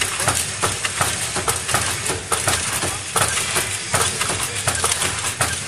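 Milk pouch packing machine running, a dense stream of mechanical clicks and clatter over steady machine noise.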